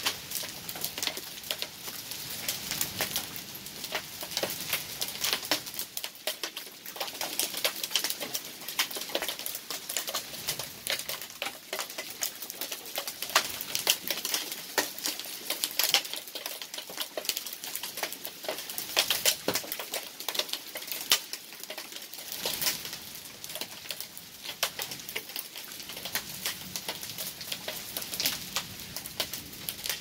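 Heavy rain and small hail pattering on the ground and nearby surfaces: a dense, steady run of sharp ticks, with no lulls.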